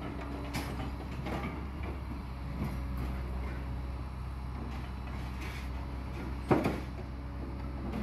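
Scrap-handling excavator's diesel engine running steadily, with scattered metal clanks and one loud clank about six and a half seconds in.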